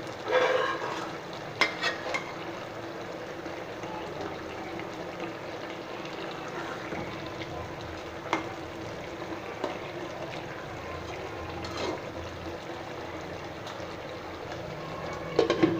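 Koi fish and ridge gourd curry cooking in a pan with a steady sizzle, and a few sharp clicks of a utensil against the pan.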